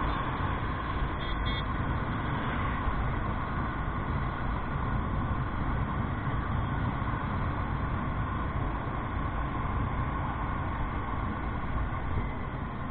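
Motorcycle riding at a steady cruise of about 37 km/h, heard through the handlebar-mounted action camera's microphone: a constant rumble of engine and wind noise without pauses.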